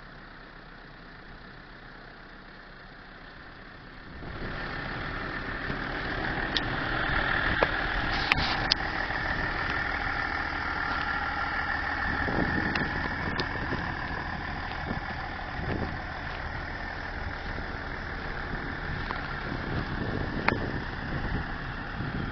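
A 4x4's engine idling steadily. It gets louder about four seconds in, and a few sharp clicks sound over it.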